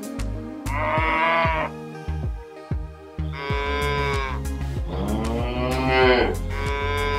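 A cow mooing four times, each a drawn-out call of about a second, over background music with a plucked beat.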